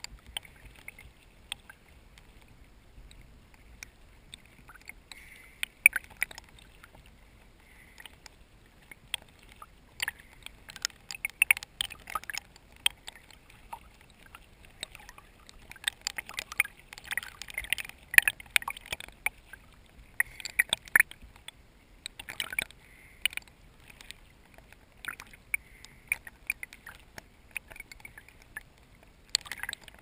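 Water lapping and sloshing against a GoPro's waterproof housing held at the surface, heard through the case as a muffled wash with many irregular sharp clicks and crackles, thickest in the middle stretch.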